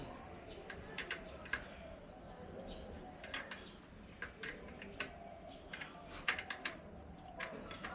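Irregular sharp clicks and taps of a hand tool working on bicycle parts while a bolt is tightened during assembly.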